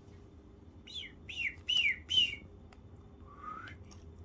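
A person whistling: four short notes in quick succession, each sliding down in pitch, then a short note sliding up about a second later.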